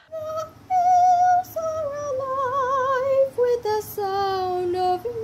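A woman singing long, high notes with vibrato, the phrase stepping down in pitch note by note.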